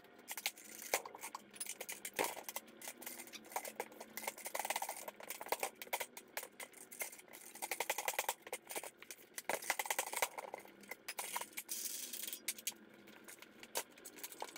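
Irregular light clicks, knocks and scuffs from a trailer tire being handled on a steel manual tire changer while the bead is broken and the tire is lifted onto the changer's post.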